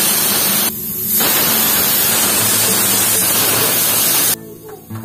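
Aluminium pressure cooker on a gas burner, at pressure and venting steam through its weight valve in a loud, steady hiss. The hiss dips briefly about a second in and stops abruptly near the end.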